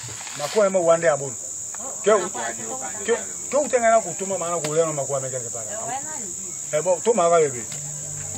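A man speaking in a local language over a steady, high-pitched insect chorus.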